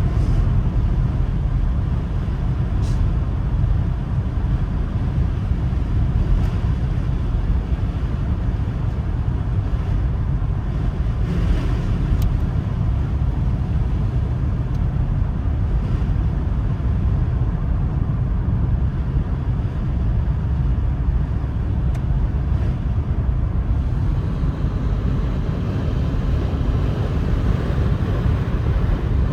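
A car driving, heard as a steady low rumble of road and engine noise from inside the cabin.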